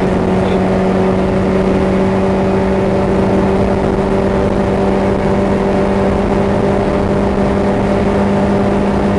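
Vehicle engine and road noise while driving at a steady speed on a dirt road: a constant hum held at one pitch, with tyre and wind noise underneath.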